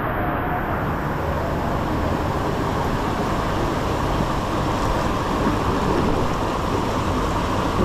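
Water rushing steadily down an open fiberglass waterslide flume, a continuous splashing hiss that grows brighter about half a second in.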